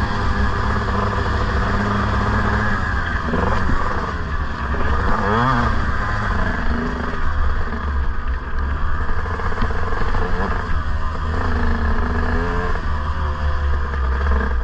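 KTM 150 SX two-stroke motocross bike engine under way, the revs climbing and dropping several times as the rider works the throttle and gears, over a heavy low rumble of wind on the onboard microphone.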